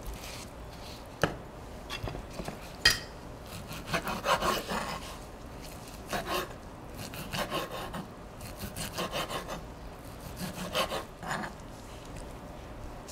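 Kitchen knife sawing through a seared beef sirloin steak on a wooden cutting board, in repeated short bouts of back-and-forth strokes. Two sharp knocks come about one and three seconds in.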